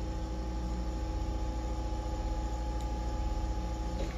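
Steady low electrical hum, like mains hum, with a few faint steady higher tones over it.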